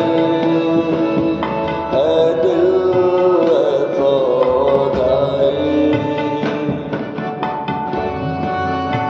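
Instrumental passage of an unplugged Hindi song without vocals. A melody line with sliding notes gives way about six seconds in to a run of separately struck or plucked notes.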